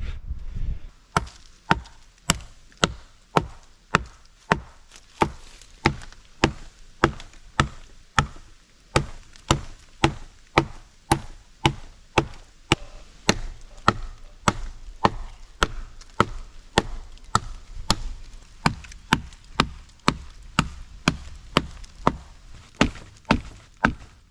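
Hatchet chopping into a fallen gum log: steady, evenly paced blows, about two a second, each a sharp woody chop.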